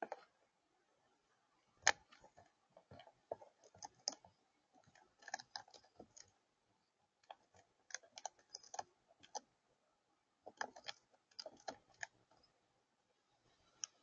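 Crow pecking at food on a feeder: its bill tapping the feeder surface in irregular clusters of sharp clicks, with short pauses between them.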